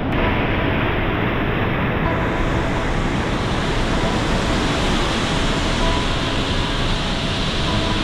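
Small waterfall cascading between rocks: a steady, unbroken rush of falling water.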